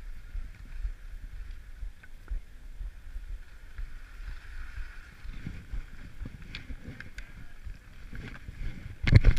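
Skis sliding slowly over packed snow, with a low wind rumble on a head-mounted camera's microphone and a few light clicks partway through. Near the end, sudden loud rubbing and knocks as a jacket brushes against the camera.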